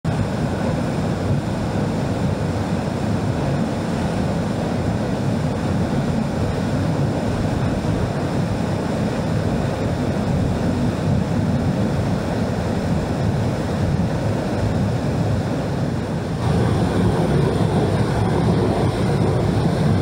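Steady rush of water jetting from a dam outlet and plunging into a concrete basin, louder from about three-quarters of the way through.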